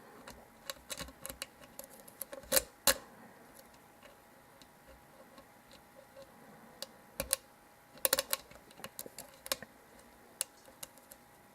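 Irregular small metallic clicks and taps of a lock pick and tension wrench working the pin stack of a Zeiss Ikon euro cylinder during single-pin picking, with a few sharper clicks about two and a half seconds in and a cluster around eight seconds.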